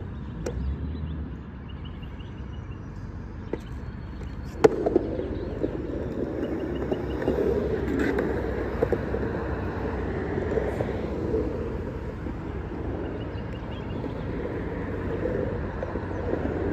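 A skateboard dropping into a concrete bowl: light clicks of the board on the coping, a sharp clack about four and a half seconds in, then the steady roll of hard 56 mm, 97A urethane wheels on concrete as it carves around the bowl.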